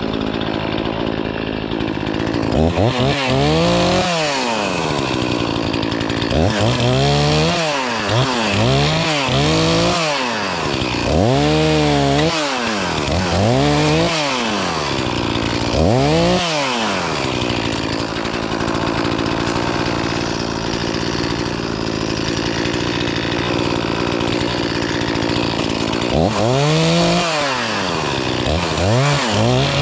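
Chainsaw engine revving up and dropping back again and again, about ten times, in short bursts. A steadier stretch at lower revs runs through the middle.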